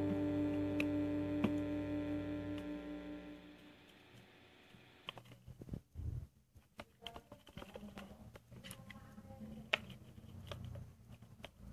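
Background guitar music holding steady chords and fading out over the first four seconds, followed by faint, irregular small clicks and handling noises.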